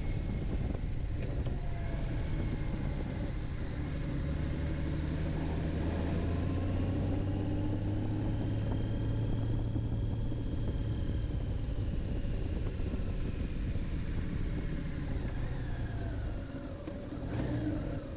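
2018 Honda Gold Wing GL1800's flat-six engine running steadily while riding at low speed, easing off briefly near the end before pulling again.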